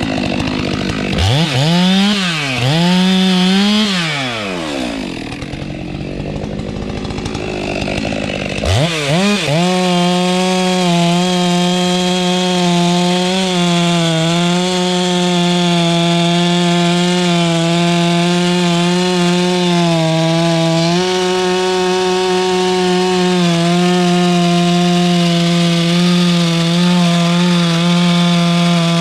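Two-stroke chainsaw revved up and down twice, then dropping back. About nine seconds in it goes to full throttle and holds there, steadily cutting into the tree's wood.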